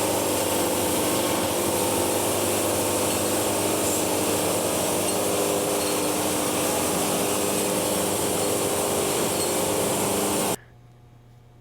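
Wood-Mizer band sawmill running steadily, its engine and band blade sawing a board off a log; the sound cuts off suddenly near the end.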